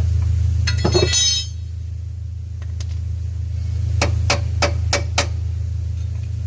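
Hammer blows on metal while working the engine mount loose: five sharp, ringing strikes in quick succession, about three a second, after a short metallic clatter about a second in. A steady low hum runs underneath.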